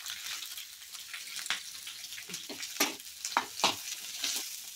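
Sliced onions sizzling in hot oil in a pan, a steady hiss, with a utensil scraping and knocking against the pan several times as they are stirred.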